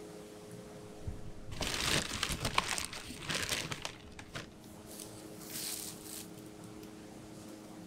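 Plastic bag liner crinkling and rustling as a plastic scoop digs into and pours powder in a sack. The rustling is densest from about a second in until past the middle, with a shorter rustle near the end. A steady low hum runs underneath.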